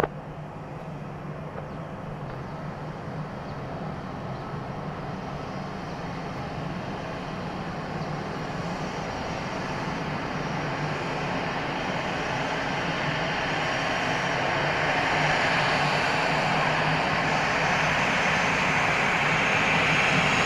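Airbus A320 jet engines at taxi power, growing steadily louder as the aircraft approaches, with a high whine building through the second half.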